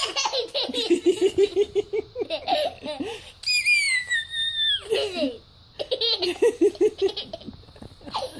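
A baby laughing in quick, breathy bursts, two runs of giggles with a long, high-pitched squeal that falls away in the middle.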